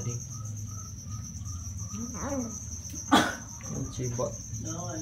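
Crickets chirping steadily in the background, with a single sharp knock about three seconds in.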